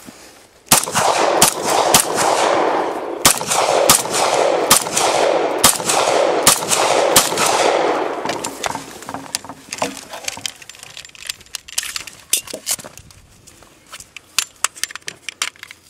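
Beretta 9mm pistol fired about a dozen times in quick succession over some seven seconds, each shot trailed by an echo. After that come light metallic clicks and rattles of magazine handling for a reload.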